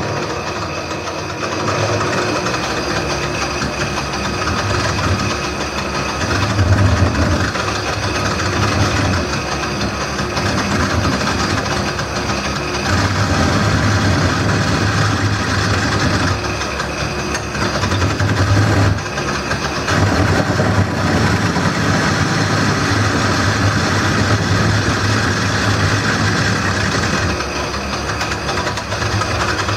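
Wood lathe running while a gouge hollows out a spinning bowl blank: a steady motor hum under a rough shaving noise that swells and eases as the tool bites.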